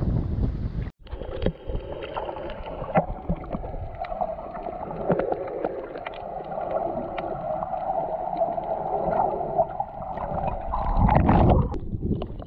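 Underwater sound from a snorkeler's camera: a muffled, steady drone with scattered clicks and crackles. Near the end comes a loud rush of water as the camera breaks the surface. Before the cut, about a second in, there is wind noise on the microphone at the surface.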